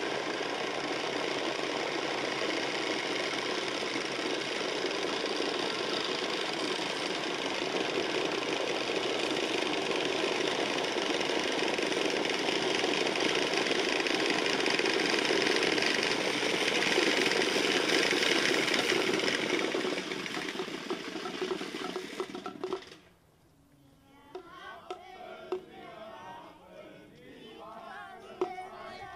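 Many hand-turned wooden Easter rattles (Klappern) clattering at once in a dense, continuous din, the rattles used in place of church bells during Holy Week. It cuts off suddenly about 23 seconds in, leaving faint voices and a few clacks.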